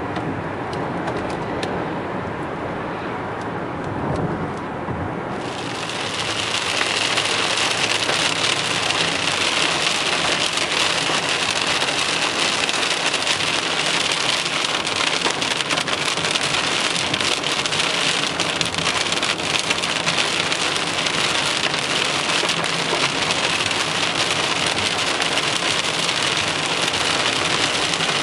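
Car driving into a severe thunderstorm. About five seconds in, heavy rain mixed with hail suddenly starts pelting the car, a dense hiss crowded with small rapid impacts that stays loud.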